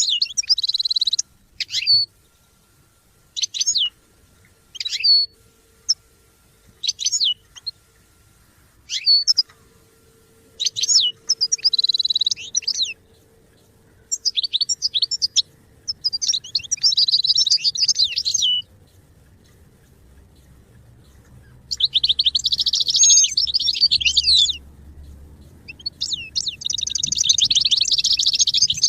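European goldfinch singing: short, high chirping calls a second or two apart at first, then longer twittering song phrases of a few seconds each from about halfway through.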